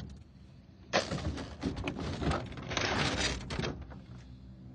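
A burst of clattering and scraping that starts about a second in and lasts a couple of seconds: computer circuit boards being handled and dropped into a plastic bin.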